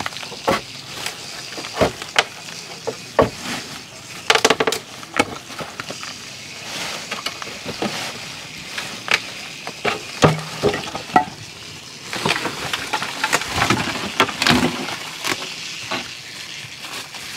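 Wooden formwork boards being pried and knocked off a concrete post with a steel rebar bar: irregular knocks, clatters and scrapes of wood and metal, some in quick clusters, over a steady hiss.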